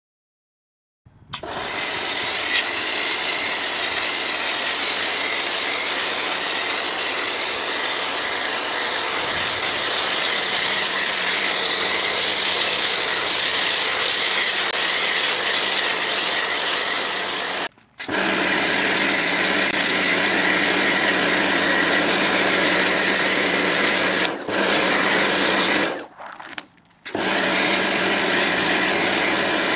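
Pressure washer running with a snow foam lance: its motor runs steadily under the hiss of foam being sprayed. It cuts out briefly a few times.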